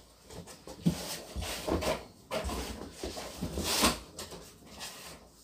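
Handling noise: irregular rustling and light knocks of objects being moved about on a tabletop, with a louder rustle about four seconds in.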